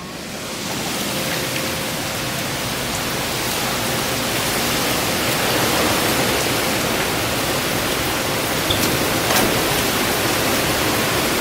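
Hurricane-force wind with rain: a steady, loud rush of noise, with the wind buffeting the microphone. It swells up in the first second.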